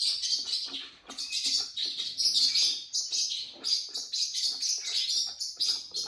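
A dog licking and lapping at the rolling ball of a lick bowl filled with bone broth: quick wet licks, several a second, in uneven runs.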